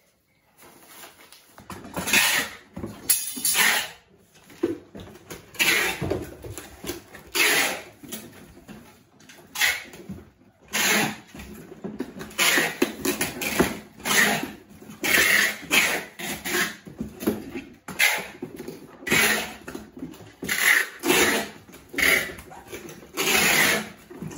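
Packing tape being pulled off the roll and pressed onto cardboard boxes: a long string of short, loud screeching strips, one after another, as shipping cartons are sealed.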